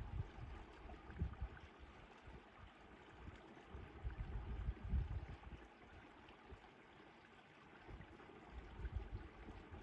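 Wind buffeting the microphone in irregular low gusts, strongest about a second in, around the middle and near the end, over a faint steady rushing.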